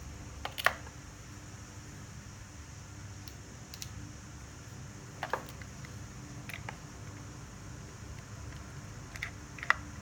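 Plastic casing of a cordless drill battery pack being worked open: scattered sharp clicks and snaps, three louder ones about half a second in, midway and near the end, over a low steady hum.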